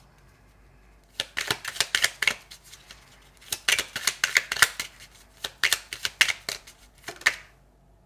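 A deck of oracle cards being shuffled by hand: four bursts of quick, crisp card snaps with short pauses between.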